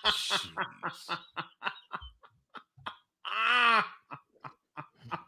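A man laughing hard in short breathy bursts that die away. About three and a half seconds in comes one long, high, rising-and-falling squeal of laughter.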